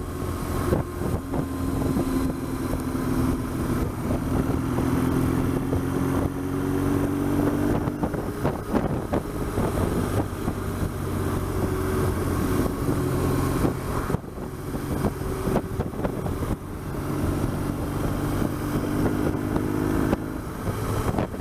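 BMW R1200GS flat-twin engine running under way, its pitch rising and falling gently with engine speed. The sound drops briefly twice past the middle, as when the throttle is eased.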